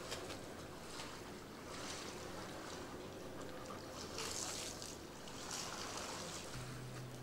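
Faint ambience of small waves washing on a shore: a soft hiss that swells up every second or two.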